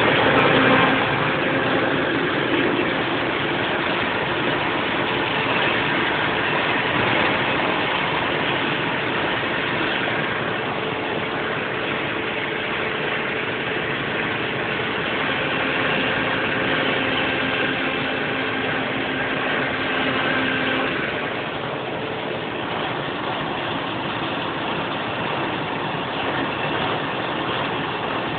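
Don-1500B combine harvester running, its engine and machinery giving a steady mechanical drone with a few constant tones running through it. The drone eases slightly about three-quarters of the way through.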